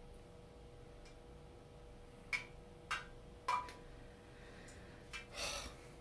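Wooden chopsticks ticking against a tin-lined copper tamagoyaki pan three times, sharp clicks about half a second apart with a brief ring, then a short rustle near the end as oil-soaked kitchen paper is wiped across the pan. A faint steady hum runs underneath.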